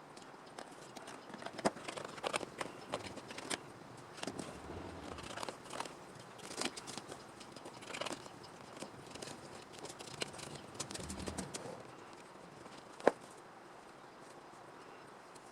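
Small handling noises from hand work: scattered light rustles, taps and clicks, with one sharp click about thirteen seconds in.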